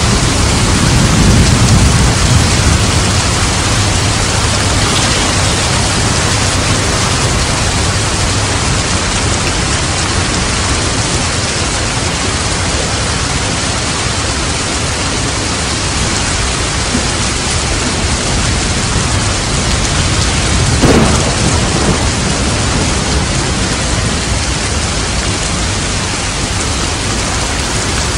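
Steady heavy rain falling at night, with a low roll of thunder about a second in and a brief sharper sound about twenty seconds in.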